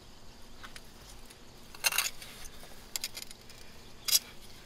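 Glass bottles and shards clinking against each other as gloved hands work them loose from the wet fill of a privy pit. There are a few sharp clinks, about two, three and four seconds in.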